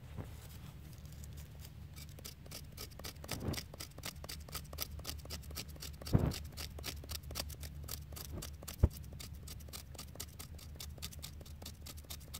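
Knife blade scraping birch bark against a flat stone in quick repeated strokes, shaving it into fluffy fire-lighting tinder. Two louder knocks stand out, about 6 and 9 seconds in.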